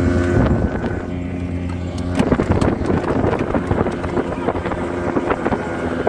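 A 25 hp outboard motor drives a small open speedboat at speed, with wind buffeting the microphone. From about two seconds in, many short knocks sound as the hull bangs through the waves.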